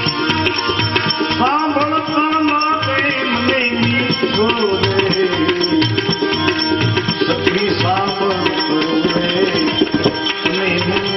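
Bhajan music: tabla keeping a steady beat under sustained accompanying tones, with a melody gliding in pitch over them.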